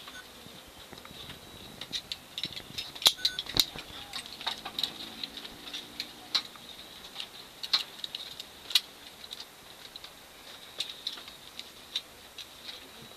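Irregular light clicks and rattles, with a sharper knock about three seconds in.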